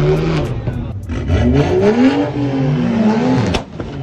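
Car engine revving hard, its pitch climbing and dropping in repeated swells, with a sharp crack near the end.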